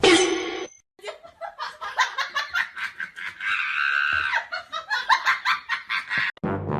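People laughing in quick bursts, cut off suddenly near the end.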